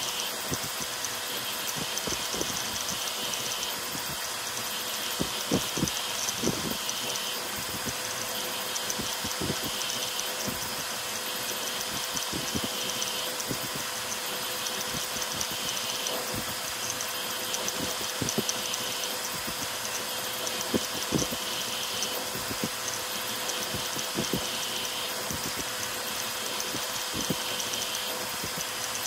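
A 3D printer, an Ender 5 Pro rebuilt as a ZeroG Mercury 1.1 CoreXY, printing at high speed (400 mm/s, 40k acceleration). Its stepper motors and fast-moving toolhead make a mechanical whir with short sharp clicks and knocks scattered throughout. Over it runs the steady hiss of a CPAP part-cooling blower.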